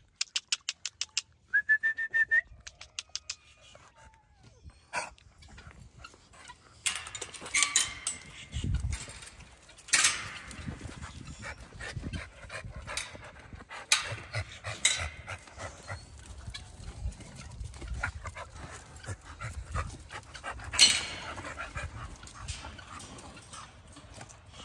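American Bully dogs in kennels barking and whining, with several loud barks spread through. A quick run of sharp clicks and a short rising whine comes near the start.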